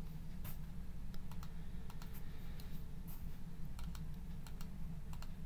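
Computer keyboard keys and mouse buttons clicking in scattered, irregular taps over a steady low hum.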